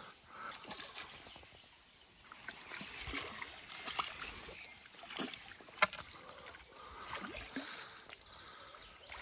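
A hooked carp splashing and swirling at the water's surface as it is drawn over a landing net, in scattered irregular sloshes, with one sharp click about six seconds in.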